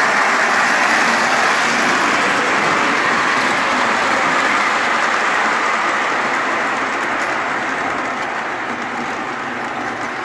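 O gauge model trains running on the layout track: a steady whirring rumble of electric motors and metal wheels on the rails, loudest as a Southern Pacific diesel passes close and slowly fading over the second half.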